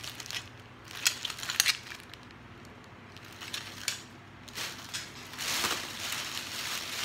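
Plastic packaging being handled: a few sharp clicks about a second in, then from about four and a half seconds in a longer stretch of plastic crinkling and rustling as a plastic mailer bag is pulled about.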